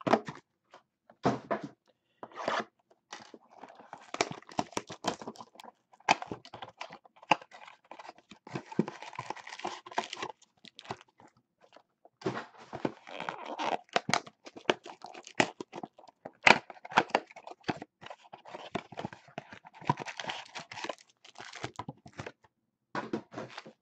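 Hands unwrapping a sealed hobby box of baseball cards: cellophane shrink wrap tearing and crinkling, and packs being taken out and set down on the table with irregular soft knocks.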